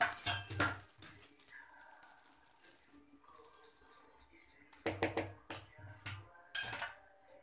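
Steel spoon knocking and scraping in a steel bowl of thick idli batter: a few clinks with dull thumps at the start, and a quicker run of them about five to seven seconds in. Faint bird chirps sound in the quieter stretch between.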